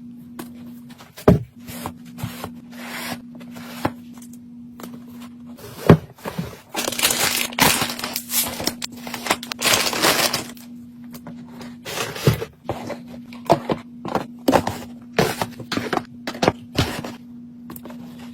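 Plastic packaging of frozen treats crinkling and rustling as it is handled and stacked, with scattered knocks as items are set down; the crinkling is densest in the middle. A low steady hum runs underneath.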